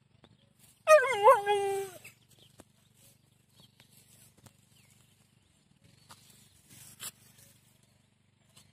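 Siberian husky giving one drawn-out vocal call about a second in, lasting about a second. Its pitch wavers up and down and then falls away, the 'talking' howl-like vocalising of a husky.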